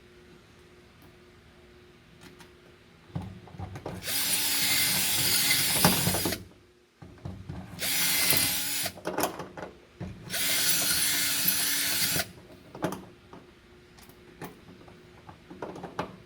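Power drill run in three bursts, the first and last about two seconds long and a shorter one between, opening up a rivet hole that is too small for the pop rivet. Lower rattling and handling clicks come around and after the bursts.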